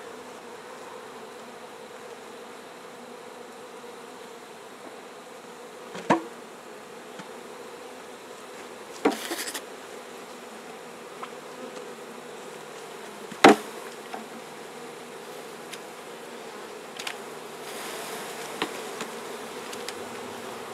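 A mass of honeybees buzzing steadily as a freshly dumped package colony settles onto the hive frames. Three loud sharp knocks cut through the buzz a few seconds apart, with a few fainter taps.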